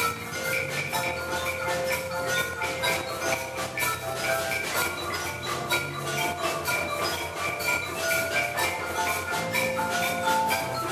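Percussion orchestra playing live: marimbas and other mallet keyboards sound quick, busy struck notes over a steady beat from a drum kit.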